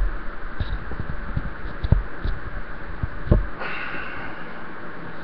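Handling noise from a webcam being gripped and moved: irregular dull low thumps and knocks, then a steady breathy hiss from about three and a half seconds in.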